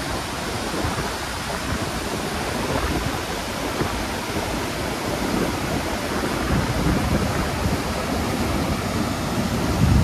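Takakkaw Falls and the glacial meltwater torrent below it rushing over rocks: a loud, steady rush of falling and churning water.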